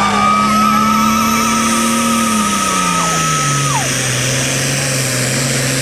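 Super Farm pulling tractor's turbocharged diesel engine running hard with a high turbo whistle. About two seconds in, the engine note drops and settles lower, and the whistle falls away as the engine comes off the throttle.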